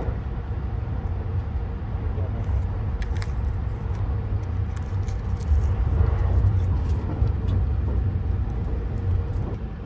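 Steady low running rumble of a moving train, heard inside the passenger cabin, with a few faint light clicks and crinkles of plastic packaging being handled.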